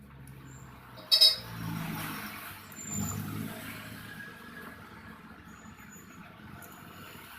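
A sharp clack about a second in, then a motorcycle engine running unevenly, swelling twice before settling to a steadier, quieter running sound.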